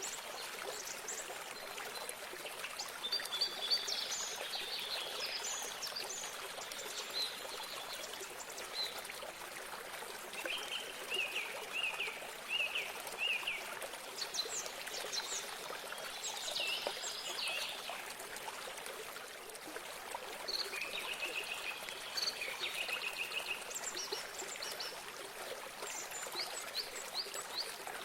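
Small stream or spring water trickling steadily, with several birds singing in short repeated chirping phrases over it.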